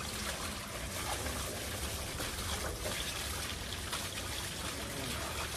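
Water from a garden hose running steadily over a husky being bathed, splashing and trickling onto wet concrete.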